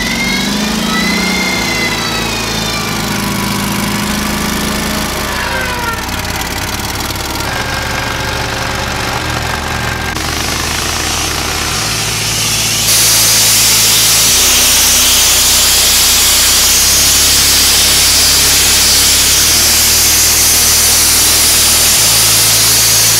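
An engine running, then about 13 seconds in a sandblasting nozzle opens with a loud, steady hiss of air and abrasive, blasting caked-on aluminum oxide and debris off an aluminum dump-truck tailgate.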